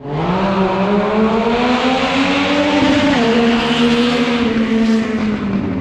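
An engine pulling hard, its pitch climbing steadily, then dropping sharply about three seconds in as at a gear change before it runs on steadily.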